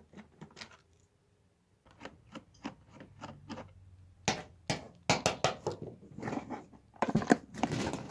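Screwdriver clicking as screws are backed out of a Kärcher SC 1122 steam cleaner's plastic housing. From about halfway on come louder knocks and scrapes as the plastic body is handled and turned over on the table.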